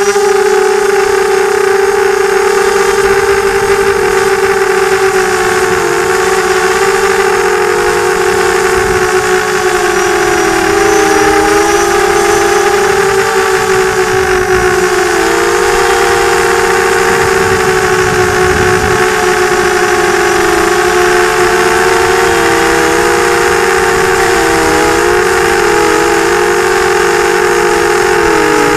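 Electric motors and propellers of an FPV quadcopter whining steadily, several close tones weaving together, the pitch dipping and rising again a few times as the throttle changes.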